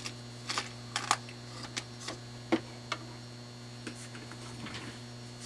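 Irregular light clicks and ticks, a dozen or so spread unevenly, over a steady low mains hum. They come from a Panasonic five-disc CD changer that is powered up and trying, without success, to start playing a disc.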